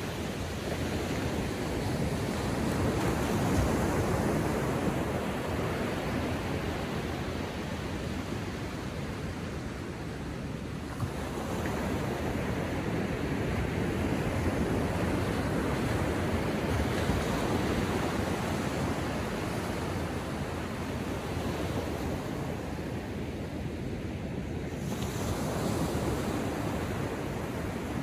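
Atlantic surf breaking on the beach: a continuous rushing wash that swells and eases about every ten seconds.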